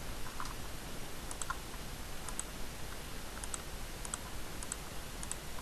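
Faint small clicks, mostly in quick pairs, every half second to a second, over a steady hiss.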